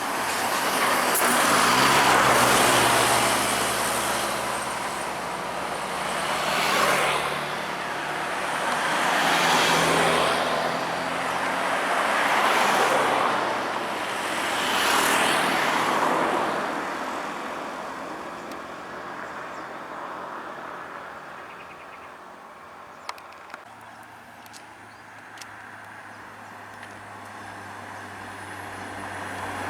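Road traffic of heavy vehicles passing one after another: engines running and tyres rushing by in repeated swells every few seconds. After about halfway it dies down to a quieter engine hum that grows louder again near the end.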